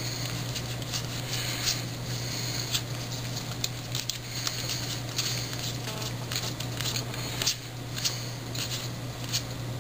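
A stack of trading cards being flipped through by hand, one card after another. It makes a quick, irregular run of soft flicks and slides of card stock against card stock, over a steady low hum.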